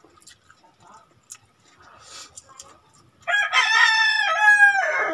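A rooster crows once, loudly, starting about three seconds in and lasting about two seconds, its pitch dropping at the end. Before it there are only faint small clicks of eating by hand.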